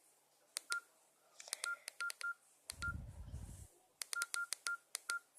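Keypad of a small mobile phone being pressed button by button, each press giving a click and a short beep, about nine times at an uneven pace. A brief low rumble comes about three seconds in.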